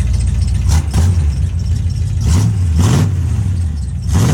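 Chevy pickup truck engine idling, revved in three short throttle blips that rise and fall in pitch.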